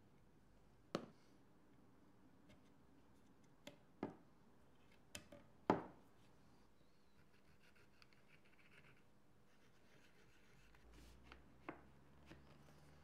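Flooring strips and a small glue bottle being handled on a wooden workbench: a handful of short, sharp knocks and taps, clustered in the first six seconds, with fainter taps and rubbing near the end.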